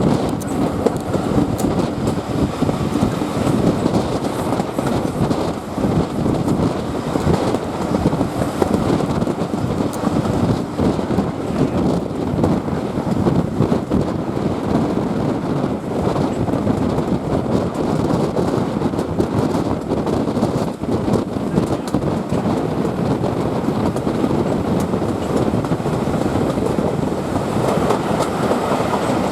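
Steam-hauled heritage train running along the line: a steady rumble with the clatter of wheels over the rails.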